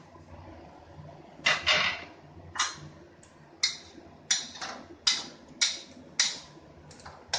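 Metal spatula stirring and scraping through wet bottle gourd slices in a stainless steel wok: a run of about a dozen sharp scraping strokes, one every half second to a second, starting about a second and a half in, over a low steady hum.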